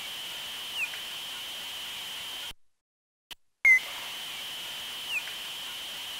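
Time-expanded (slowed-down) bat detector recording of bat echolocation calls, played twice: short downward-sweeping chirps over a steady high tone. A faint chirp comes about a second in. The playback stops, then restarts with a loud chirp and a second faint one near the end.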